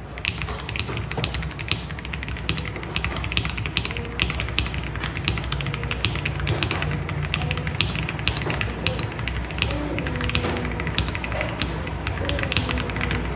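Sound test of a mechanical keyboard fitted with XDA-profile keycaps: a fast, continuous run of key clacks from steady typing. Faint background music plays beneath it, with a melody showing more in the second half.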